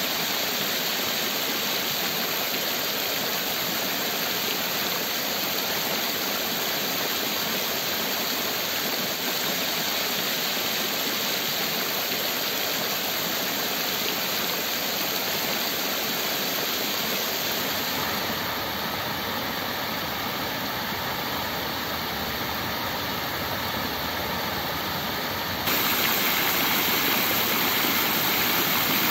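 Rows of water jets in a basin fountain splashing into the pool: a steady rushing of water, stepping up in loudness a few seconds before the end.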